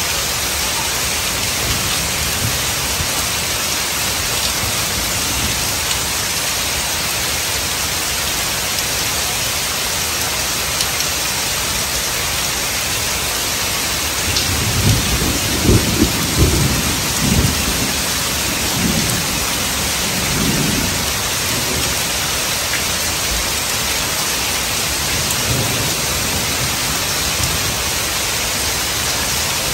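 Heavy rain falling steadily through woodland, a constant hiss, with thunder rumbling in several rolls about halfway through and a fainter roll shortly after.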